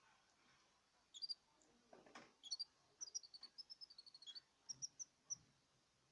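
Canary giving a series of short, high, faint chirps with a quick twittering run in the middle, from about a second in until near the end. There is a short rustle about two seconds in.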